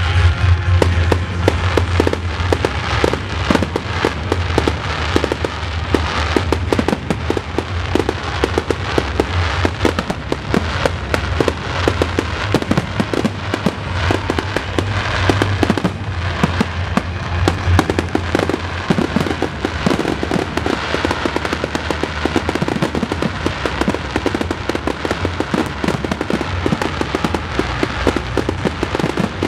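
Dense barrage of aerial firework shells bursting, many sharp bangs in quick succession.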